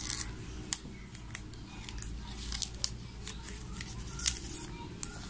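Light handling noise of a smartwatch and its plastic protective film: scattered small clicks and crinkles as fingers work the watch and its cellophane cover.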